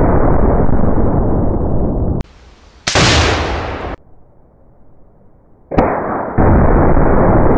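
Tannerite exploding targets going off: the rumbling boom of one blast dies out about two seconds in, and near the end a sharp rifle shot sets off a second Tannerite explosion whose loud rumble runs on for several seconds. A short burst of hiss comes about three seconds in.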